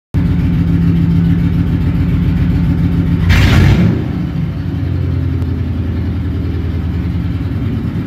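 Car engine running with a deep, steady rumble, broken about three and a half seconds in by a brief loud rush of noise, then settling back to a steady run.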